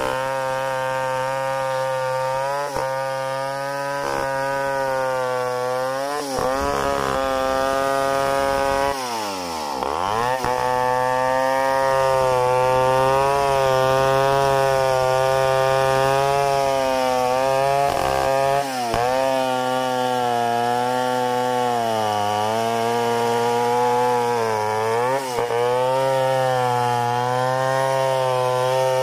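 Stihl 070 two-stroke chainsaw running at high throttle under load, freehand rip-cutting lengthwise through an Acacia mangium log. The engine pitch wavers with the load; about ten seconds in it drops sharply and climbs straight back, with smaller dips later on.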